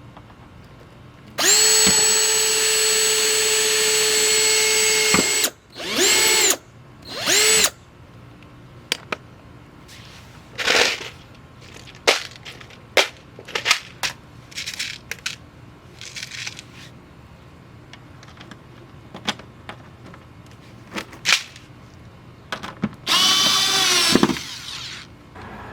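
Power drill running in bursts: one steady run of about four seconds, two short bursts, and another run near the end that winds down in pitch as the trigger is released. Light clicks and knocks fall between the runs.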